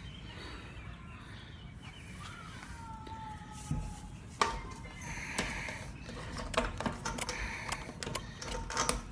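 Scattered light clicks and clinks of parts being handled during fuel pump work, starting about four seconds in, over a low steady background.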